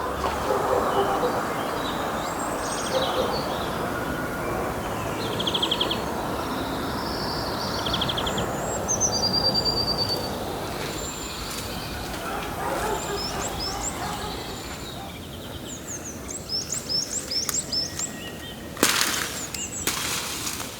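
Small songbirds chirping and trilling over a steady outdoor background hiss, with a quick run of rising chirps late on. Near the end come two short, loud noises.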